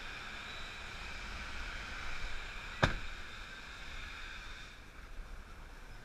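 Semi truck's diesel engine running at low speed, heard from inside the cab, with one sharp knock about halfway through; the steady hum eases and gets quieter near the end.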